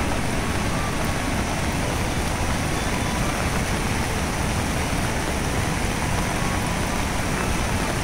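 Steady rushing roar of a rain-swollen river pouring over rocky rapids toward a waterfall, with light rain falling.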